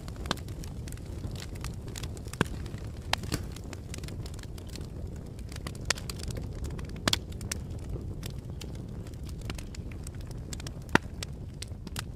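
Fire crackling: a steady low rumble of burning with sharp, irregular pops and snaps throughout, the loudest pop near the end.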